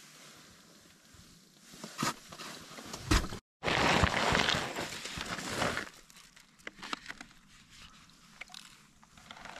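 Crusty snow and slush crunching under a person kneeling and shifting at an ice-fishing hole, loudest for a couple of seconds just after a brief dropout, with scattered clicks and knocks from handling a tip-up.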